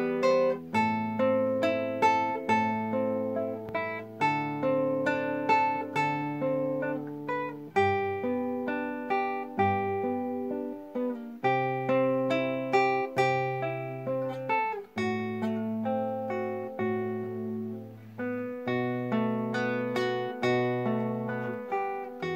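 Classical guitar played solo fingerstyle: a melody of plucked notes that ring and fade, over held bass notes.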